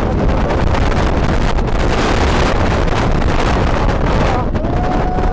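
Strong wind buffeting the camera microphone, a loud, steady rushing rumble.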